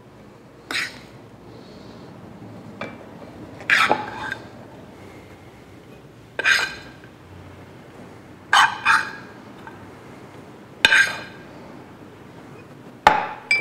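Metal spoon scraping and tapping against a frying pan and small glass cups as an oat mixture is scooped out and dropped in: about seven short clinks a couple of seconds apart, some ringing briefly.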